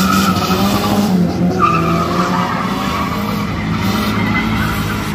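Drift car sliding with its tyres squealing over the running engine. There are two squeals: one fades out about a second in, and the next starts about one and a half seconds in, then trails off.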